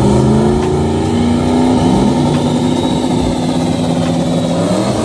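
Drag race car's engine at full throttle as it runs down the strip, its pitch climbing at first, then holding high and steady, then starting to climb again near the end.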